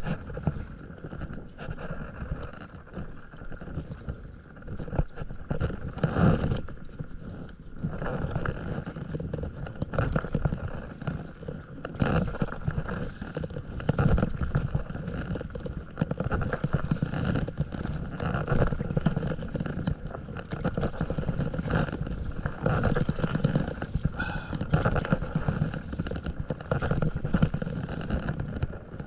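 Paddle strokes in sea water from a stand-up paddleboard: a splash and gurgle of water about every two seconds over a steady wash of water noise.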